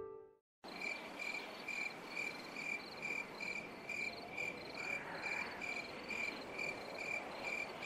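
Crickets chirping at night in a steady rhythm, a little over two chirps a second, over a soft hiss of background noise. The chirping starts about half a second in.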